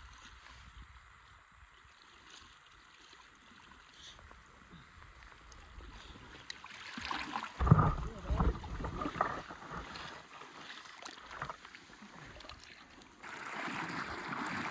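Lake water sloshing and splashing around a small craft. A cluster of louder splashes and knocks comes about eight seconds in, and a rushing noise rises suddenly near the end.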